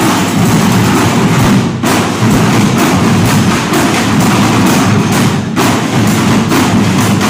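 School marching band playing loudly: drums, sousaphone and brass together, with a steady percussive beat.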